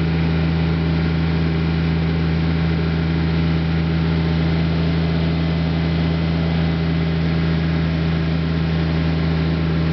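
Kubota GR2110 lawn tractor's D782 three-cylinder water-cooled diesel engine (778 cc) running steadily at an even speed, with a sound like a big tractor.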